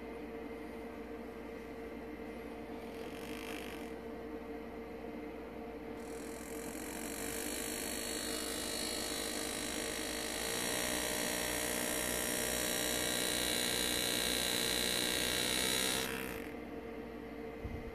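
Power engraving handpiece buzzing with a hiss as a graver cuts into a pewter chalice: it starts about six seconds in, gets louder about ten seconds in, and stops abruptly near the end. A steady hum runs beneath it.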